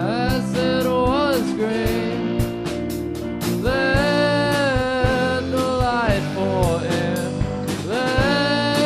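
Small rock band playing live: a drum kit with regular cymbal and drum strokes under electric guitars, and a melody line that slides up and down in pitch.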